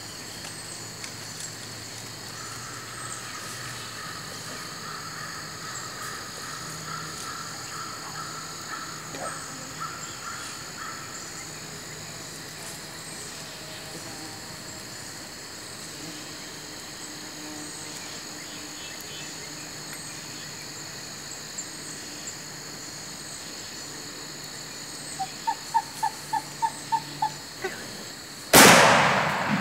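Steady high insect drone. Near the end, a quick run of about eight loud turkey yelps, then a single shotgun shot that echoes away over about a second.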